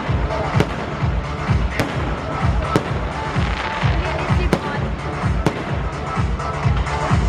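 Fireworks going off: five sharp bangs at uneven intervals over loud music with a steady bass beat.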